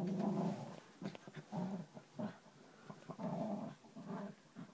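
Cairn terrier growling in a series of short bouts, about five, the first and longest at the very start, while it rolls around on a bed.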